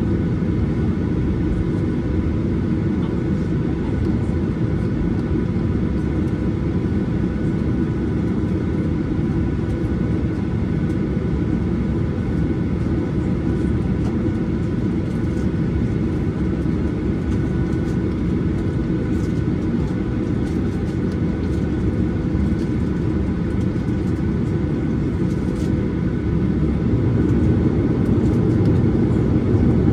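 Cabin noise of a Boeing 737-800 taxiing, heard by a window seat over the wing: the CFM56 turbofan engines run with a steady low rumble and a few thin whining tones. It grows a little louder over the last few seconds.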